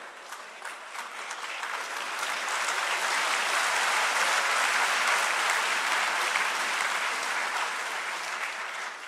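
Large seated audience applauding. The clapping swells over the first few seconds, holds, then thins out near the end.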